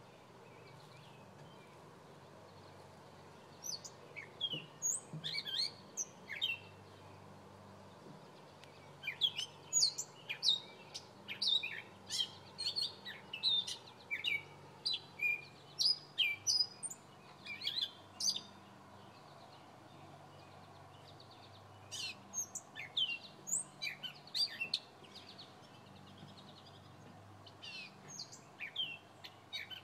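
A bird chirping in runs of quick, sharp notes that slide in pitch, in several bursts separated by pauses of a few seconds. A faint low hum runs underneath.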